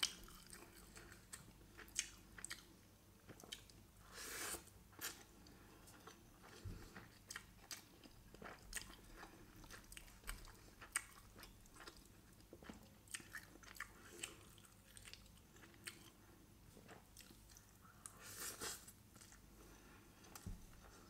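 Quiet, close-miked chewing of chicken biryani eaten by hand, with many short wet mouth clicks and smacks. Twice a longer soft rustle, about four seconds in and near the end.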